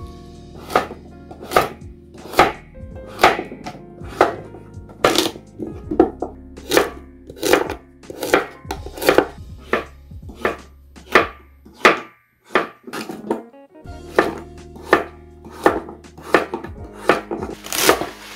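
Kitchen knife chopping through vegetables on a cutting board, one sharp stroke about every second at first, quickening to nearly two a second.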